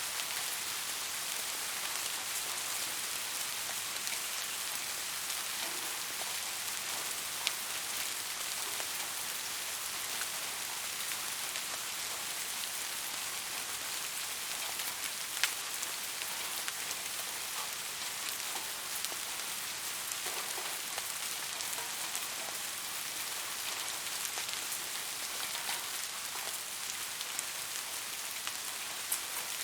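Steady rain falling, an even hiss with scattered sharper drop ticks, a few of them louder, around a third and halfway through and near the end.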